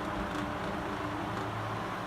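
A 1950s Mimar MP-416 16-inch table fan with a Torrington blade, running on high speed: a steady rush of air over a low motor hum.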